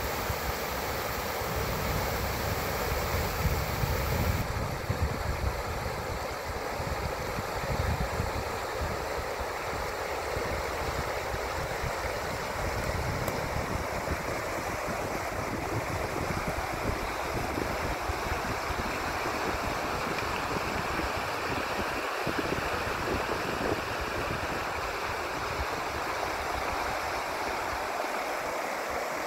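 A shallow trout stream rushing over a rocky riffle: a steady, even rush of flowing water. A low, gusty rumble of wind on the microphone sits under it, strongest over the first several seconds.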